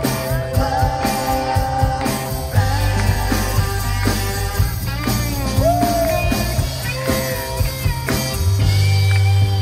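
A rock band playing live in a 1960s psychedelic style: electric guitars, bass and drums with singing.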